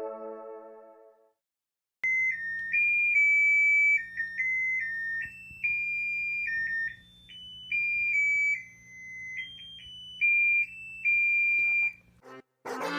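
A simple electronic melody played one pure high tone at a time, note by note, over a faint steady hum. It stops near the end, and a louder, fuller sound begins.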